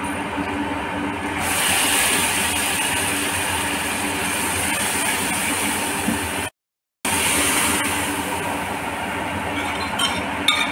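A steady mechanical hum, with a hissing sizzle over it from a garlic-and-cumin tempering in hot oil in a steel kadai on a gas burner. A few light metal clinks of a ladle against the pan come near the end.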